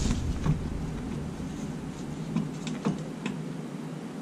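A few light clicks and taps of small hardware and tools being handled, scattered and irregular, with a cluster of them past the middle.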